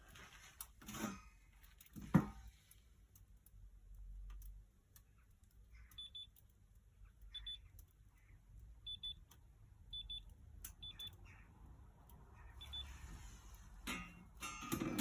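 Short, high electronic beeps, most in quick pairs, repeating every second or two, with a few knocks near the start and a louder clatter near the end.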